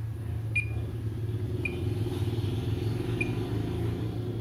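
Three brief high beeps from a digital multimeter's continuity buzzer as its probes touch points on a laptop motherboard, during a check for a short circuit. A steady low hum runs underneath.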